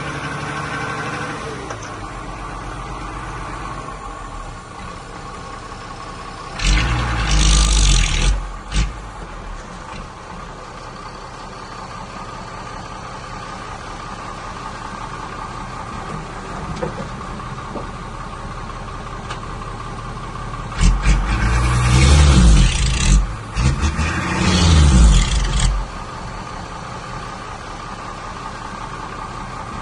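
Heavy earthmoving machinery engine running steadily, with two loud spells: a short one about seven seconds in and a longer one from about 21 to 26 seconds, where the pitch rises and falls.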